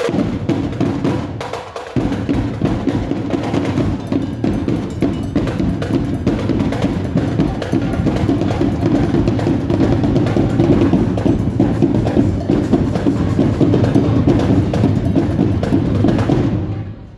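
Drumline playing a fast cadence on drums, with dense, rapid stick strikes and a bass drum underneath; there is a short break about two seconds in, and it cuts off just before the end.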